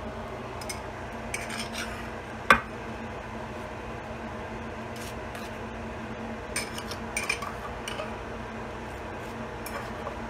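Butter knife scraping and clinking against a small bowl while scooping burger sauce and spreading it on a bun, with one sharp knock about two and a half seconds in. A steady low hum runs underneath.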